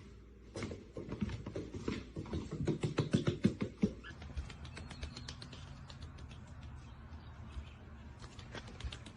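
A duckling's webbed feet making quick, rapid steps on a hard surface, loudest in the first four seconds. After about four seconds the steps turn softer and scratchier, as if on a different surface.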